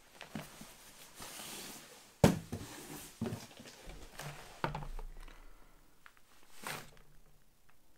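Nylon fabric and a plastic bag rustling as they are handled, with several sharp knocks of things being put down on a table, the loudest about two seconds in.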